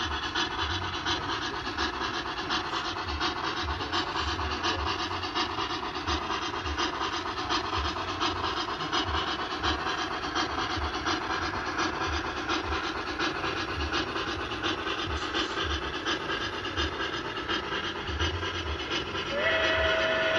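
Model trains running on a layout: a steady rumble with fast, continuous clicking of wheels on the track. Near the end a steady whistle tone from a sound-equipped model locomotive starts up.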